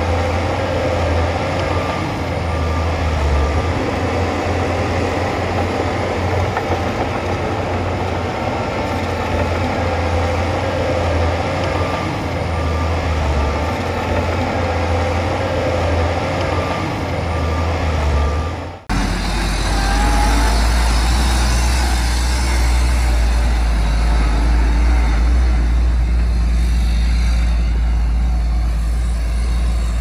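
Heavy diesel earthmoving machinery running under work, with a faint repeating beep in the first part. About two-thirds of the way in, the sound cuts abruptly to a deeper, steadier engine rumble.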